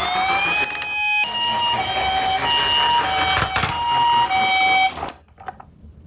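Japanese ambulance two-tone siren: a short rising wail at the start, then after a brief break the hi-lo "pee-po" call alternating between two pitches about every half second. It cuts off abruptly near the end.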